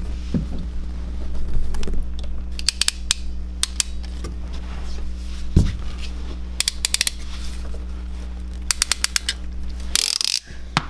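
A ratcheting hand plumbing tool clicking in three quick runs of rapid clicks, with a single knock in between, over a steady low hum.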